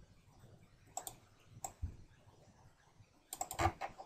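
Quiet clicking of a computer mouse: a few single clicks in the first two seconds, then a quick run of clicks about three and a half seconds in.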